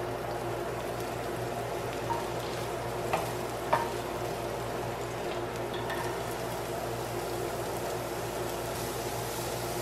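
Chopped scallions sizzling in hot oil in a nonstick frying pan, a steady hiss over a low hum, with a few light clicks of a wooden spatula against the pan two to four seconds in.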